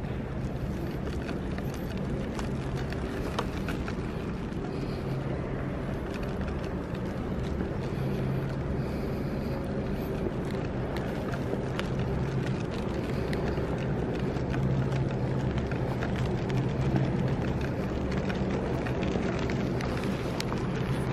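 Steady low hum of a large indoor hall, with scattered faint clicks.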